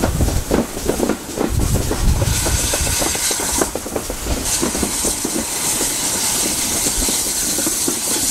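GWR pannier tank steam locomotive hauling a train on the move: a run of rapid rhythmic knocks for the first couple of seconds, then a steady high hiss over the running train for the rest.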